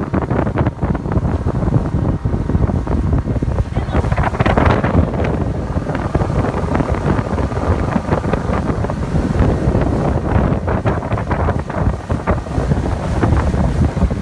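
Outboard-powered boat running fast over open sea: heavy wind buffeting on the microphone over the running outboard motor and the rush of water from the wake.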